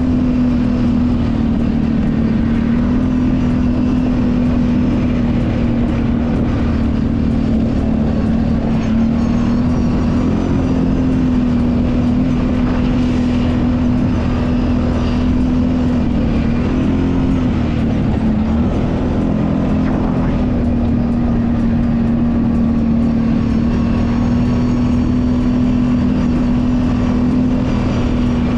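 Kawasaki Brute Force 750 ATV's V-twin engine running at a steady pitch under way, with a few brief dips in engine speed.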